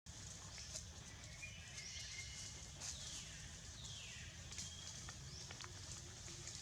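Faint outdoor ambience with a few high-pitched animal calls, two of them sliding down in pitch, and scattered light clicks.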